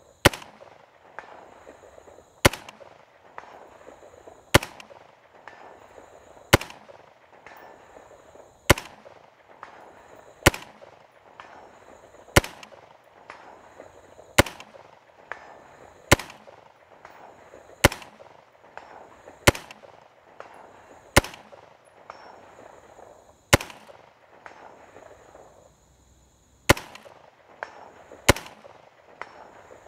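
Slow, aimed semi-automatic fire from a 5.56 mm M16-pattern rifle: single sharp shots about every two seconds, around fifteen in all, with one longer pause about three-quarters of the way through.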